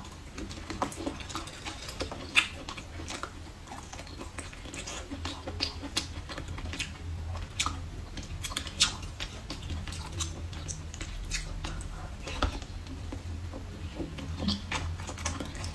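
Chewing and biting of soy-braised pork rib: scattered mouth clicks and smacks at an uneven pace.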